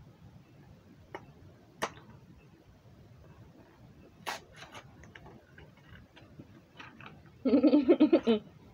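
Scattered light clicks and taps as small objects are handled on a table, a few sharper than the rest; near the end a short, loud, wordless voice sound.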